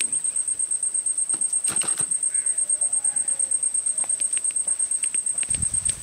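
An insect's steady, high-pitched trill, pulsing fast and evenly. A few faint clicks, and a low rustle near the end.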